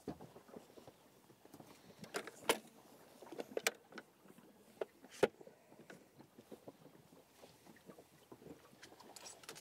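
Scattered light knocks and clicks from the bow-mounted electric trolling motor being handled on its mount. Faint water lapping against the inflatable boat's hull runs underneath.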